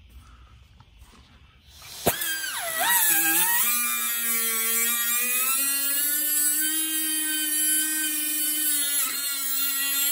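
A cut-off grinder starts about two seconds in and runs as a high whine. Its pitch dips briefly as the wheel bites into metal, then it holds steady while it cuts.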